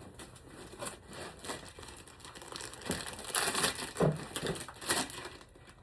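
Plastic packaging crinkling and rustling in irregular bursts as it is handled, loudest about three to five seconds in.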